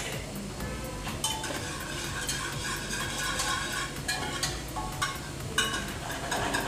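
Wire whisk stirring and beating pressure-cooked dal in an aluminium pressure cooker, a run of wet stirring with small metallic clinks of the wires against the pot. This is the dal being mashed smooth so it dissolves for sambar.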